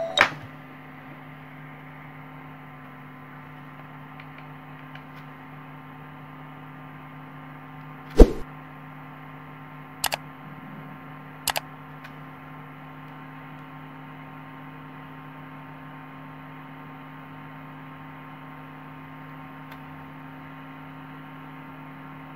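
Small 12 V DC cooling fan running steadily off a homemade transformer-and-rectifier supply, a constant hum. Several sharp clicks and knocks from the multimeter being handled and its dial turned, the loudest about eight seconds in and two more a couple of seconds later.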